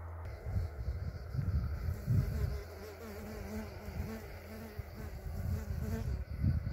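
A flying insect buzzing close by, its drone wavering in pitch through the middle of the clip. Low rumbling bursts on the microphone sit underneath and are loudest about two seconds in.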